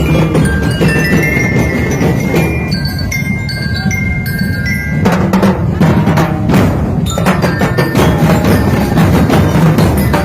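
Festival drum band playing: a dense, loud drum beat under bright, bell-like melody notes. The drums thin out about a third of the way in, then come back with several heavy crashing hits past the middle.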